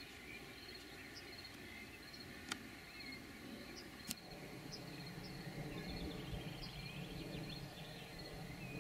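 Meadow ambience: a steady, high, pulsed insect trill with scattered short bird chirps. Two sharp clicks come about two and a half and four seconds in, and from about four seconds a low rumble joins.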